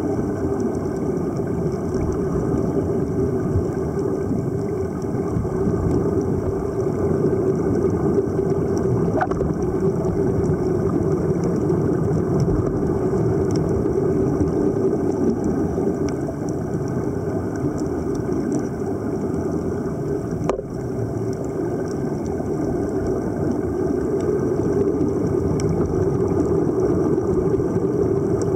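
Steady underwater rumble and wash heard through the water, with no clear rhythm, and two brief faint clicks about nine and twenty seconds in.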